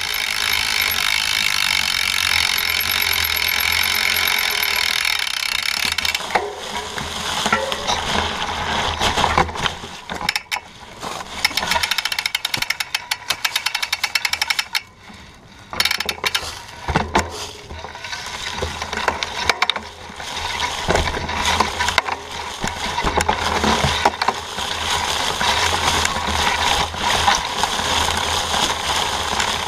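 Mountain bike ridden through dry fallen leaves on a dirt trail: a steady rush of tyres in the leaves and wind. For several seconds in the middle come rattling and rapid clicking as the bike slows and stops, with a brief lull. Then the steady riding noise returns.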